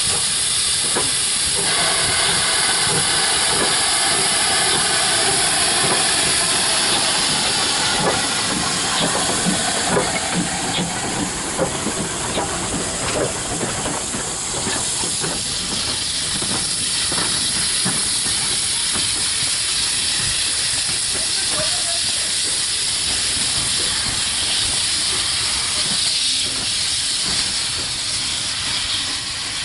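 GWR 2800 Class 2-8-0 steam locomotive moving slowly past with a loud, steady hiss of steam escaping low around its cylinders and wheels. A run of short knocks and clanks comes as it goes by.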